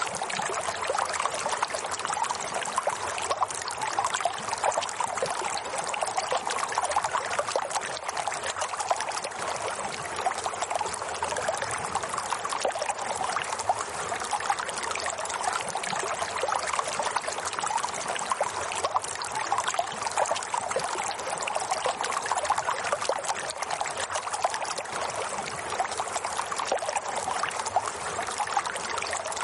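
Running water trickling steadily, dense with small splashes and unchanging throughout.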